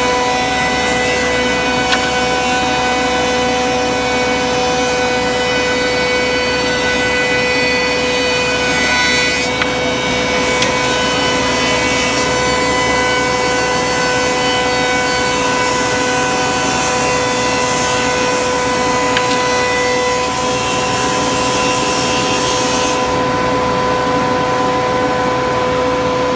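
Multiple rip saw and double-sided planer moulder running and cutting solid wood: a steady machine whine from the spinning saw blades and cutter heads over a continuous rough cutting noise.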